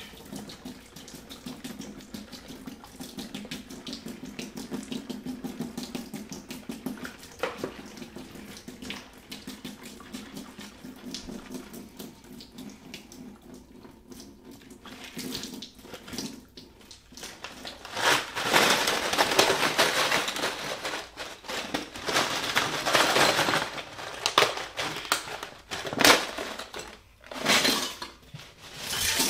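Water from a kitchen faucet running over an ice-filled plastic container and splashing into the sink, as the ice is melted off a frozen microphone. The flow gets much louder about two-thirds of the way in, and a few separate splashes follow near the end.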